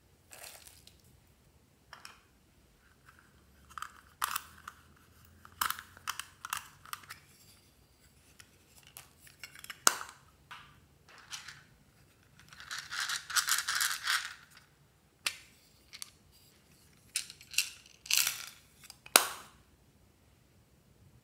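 Small plastic beads, sequins and foam pieces being dropped and sprinkled into a glass dish of slime: scattered light clicks and pattering, with a longer patter of beads being poured for about two seconds past the middle.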